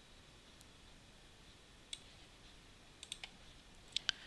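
Faint clicks of a computer mouse, a handful spread out with a small cluster a little past the middle and two sharper clicks near the end.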